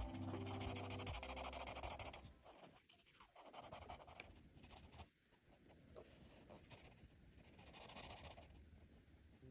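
Ohuhu dual-tip marker rubbing and scratching across coloring-book paper in short, irregular strokes as an area is filled in. Soft background music fades out over the first two seconds and comes back near the end.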